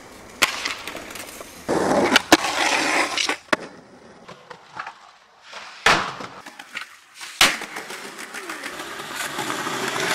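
Skateboard wheels rolling over concrete, loudest for a second or so about two seconds in and building again near the end. About five sharp wooden clacks from boards popping and landing are spread through.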